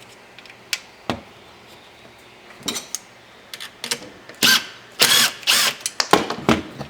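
Tool undoing the bolts that hold a car door speaker to its mounting bracket: a few scattered clicks, then several short loud bursts of tool noise in the second half.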